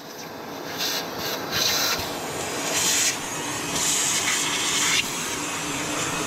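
A wet-and-dry vacuum cleaner runs, coming up to full speed over the first second, while grime is cleaned off an engine. Repeated bursts of hissing brake-cleaner spray and toothbrush scrubbing sit on top of the vacuum.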